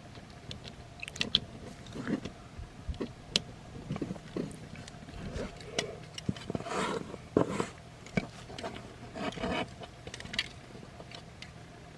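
Plastic joints and parts of a transformable robot action figure clicking, knocking and rubbing as it is worked by hand through its transformation. There are scattered sharp clicks throughout, and a couple of longer scraping stretches where parts slide against each other.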